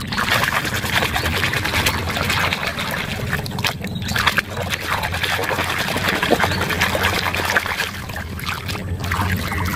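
Frothy, muddy water in a plastic washtub sloshing and churning steadily as a hand stirs and scrubs plastic toy figures in it, with small splashes.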